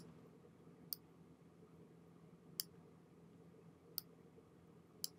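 Four separate computer mouse clicks, short and sharp, spaced one to one and a half seconds apart over quiet room tone.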